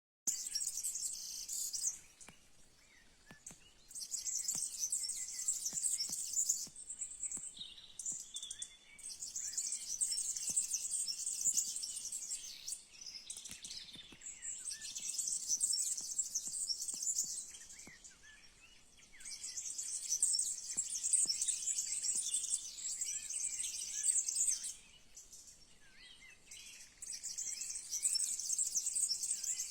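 Birds chirping and calling in a natural outdoor chorus, with a dense high trill that comes and goes in spells of a few seconds and short chirps between.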